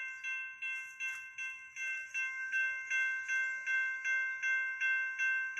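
Railroad crossing bell ringing with the crossing signals activated, struck at an even pace of a little under three strikes a second, each strike ringing on into the next. It grows louder over the first couple of seconds, then holds steady.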